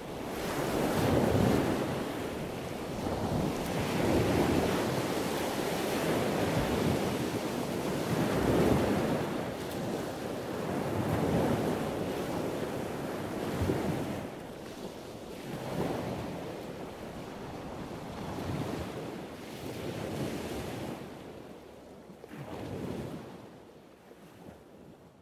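Ocean surf: waves breaking and washing in, swelling and easing every two to three seconds, fading out near the end.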